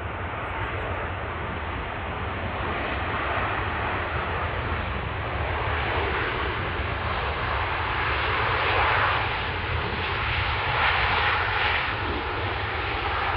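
Airbus A380's four jet engines running at high thrust as the airliner rolls down the runway, the roar growing louder and swelling as it accelerates for takeoff.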